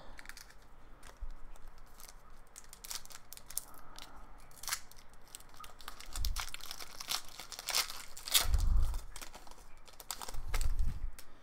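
Hockey card pack wrapper being torn open and crinkled, with scattered crackles and a few dull thumps from the pack being handled about six, eight and a half and ten and a half seconds in.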